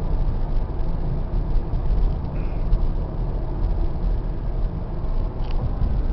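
Steady low road and engine rumble inside the cabin of a Toyota Sienna V6 minivan cruising at about 35 mph.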